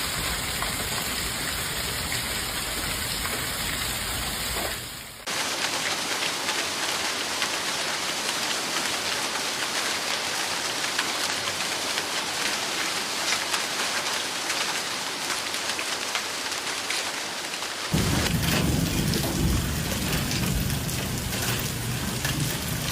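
Heavy storm downpour pounding on surfaces, a steady dense hiss full of fine pattering hits. It changes abruptly about five seconds in and again near eighteen seconds, as the footage cuts, the last stretch carrying a deeper rumble under the downpour.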